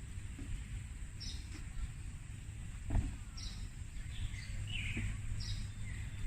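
Birds chirping, short high calls coming back about every two seconds with a few lower notes between, over a steady low rumble of outdoor background noise. A single soft thump about halfway through.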